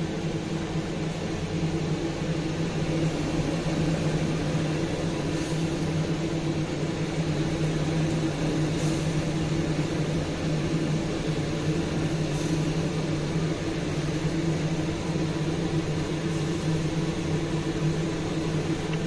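Steady low mechanical hum, such as a kitchen fan or appliance motor, with a few faint clicks.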